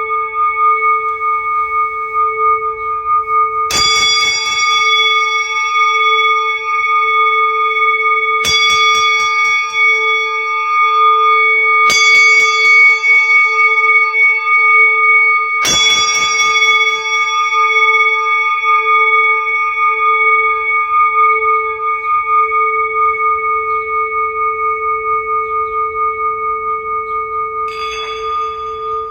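Singing bowls struck five times, each strike renewing a long, overlapping ringing tone. The lowest note pulses slowly and rings on between the strikes.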